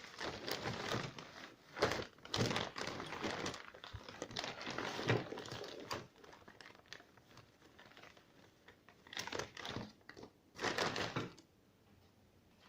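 Irregular rustling and scraping handling noises in bursts, dense over the first six seconds, then again for a couple of seconds near the end.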